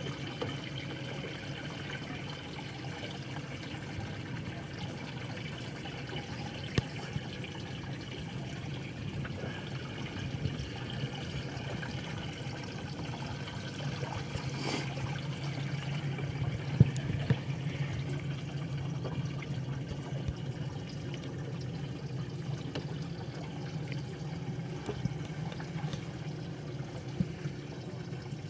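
Water trickling and lapping against a fiberglass boat hull over a steady low hum, with a few sharp clicks, the loudest about two-thirds of the way through.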